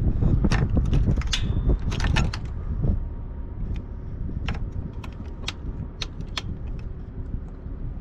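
Scattered sharp clicks and light rattles of a motorcycle's key and switches being handled and tried, over a low rumble that drops about three seconds in. No engine starts: the bike is dead.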